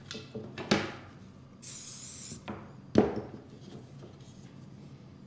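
A short hiss of CA-glue activator sprayed from a spray bottle onto a mitered trim corner, lasting under a second about two seconds in. Around it come several knocks of the wooden casing pieces being handled and set down, the loudest about three seconds in.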